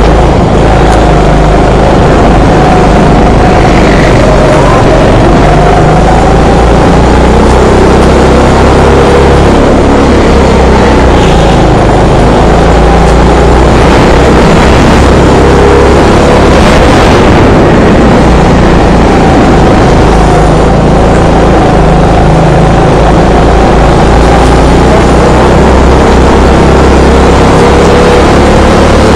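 Kart engine running hard, heard close up from on board the kart, its pitch falling and rising again and again as the kart slows and accelerates around the track. Loud throughout.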